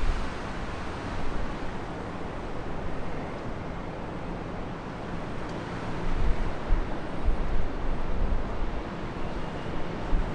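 Storm wind rushing and buffeting the microphone, a steady roar with low gusts that swell about six seconds in.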